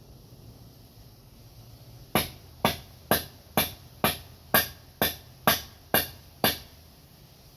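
Ten sharp, evenly spaced blows, about two a second, typical of a hammer or mallet driving a double-bit axe head onto a new hickory handle to seat it.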